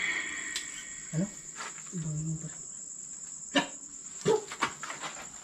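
Crickets chirping in a steady, high, continuous trill, with a few sharp clicks or knocks in the second half.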